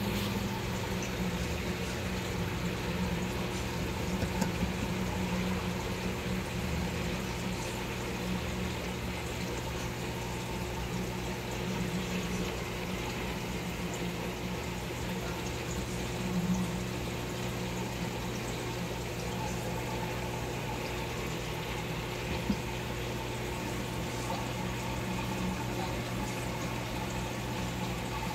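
Aquarium water and filtration running: a steady wash of trickling, bubbling water over a constant low electrical hum from the pump.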